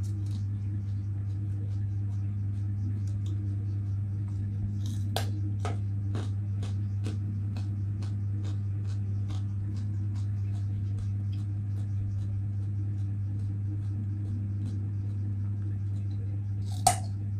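Soft, scattered clicks of food being handled and chewed over a steady low hum, then a single sharp crunch near the end as a raw carrot is bitten.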